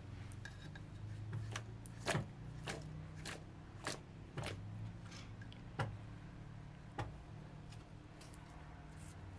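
Kitchen knife slicing tomatoes held in the hand over a steel bowl: a row of sharp clicks as the blade cuts through, about eight in all, evenly spaced at first and then slower, over a faint low hum.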